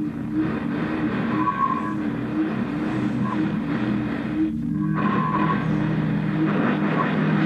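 Ambient experimental sound-performance music: a sustained low drone with a wavering tone repeating at an even pace, and short high tones now and then.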